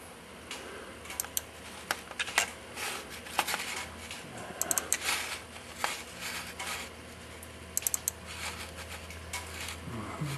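Scattered sharp clicks of a computer mouse and keyboard being worked, twice in a quick run of three, over a steady low hum.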